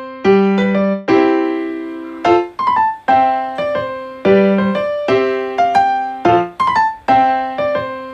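Background piano music: a gentle, repeating melody of struck notes that ring and fade.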